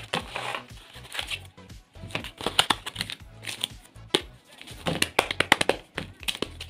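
Paper crafts wrapped in glossy tape being handled: crinkling rustles and quick clicks in clusters about two seconds in and again about five seconds in, over background music.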